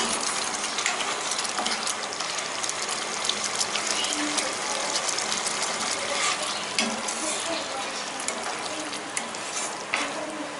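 Thick paneer masala gravy simmering in a pan, a steady sizzle dotted with many small pops of bubbles bursting, with a spoon stirring through it near the end.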